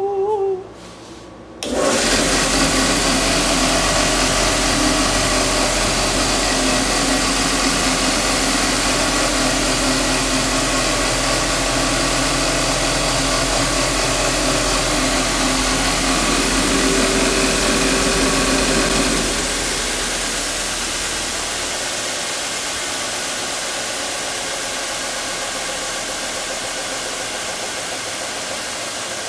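Jet 6x48 belt/disc sander's 1½ hp motor switched on, starting suddenly about two seconds in and running steadily with a hum and whir from the spinning belt and disc. About two-thirds of the way through the sound drops and then slowly winds down.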